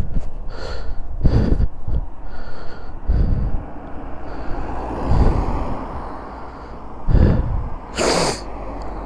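Irregular rushes of noise and low thumps from air hitting the microphone, with no steady engine note. The strongest hissing rush comes about eight seconds in.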